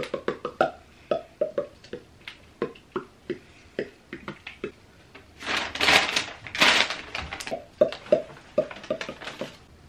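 Irregular small clicks and taps of plastic camera and tripod parts being handled and fitted together, with a louder rustle of a large paper instruction sheet being handled about five and a half seconds in.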